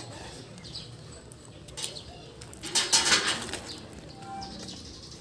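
Birds in the background, with a brief rustling burst about three seconds in.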